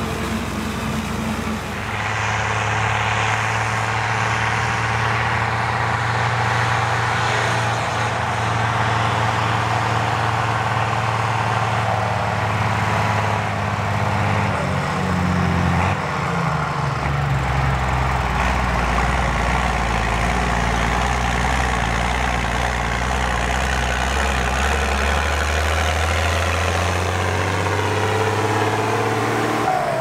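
Heavy diesel farm machinery running steadily under load. The engine note shifts about halfway through, then settles into a deeper tone that slowly rises.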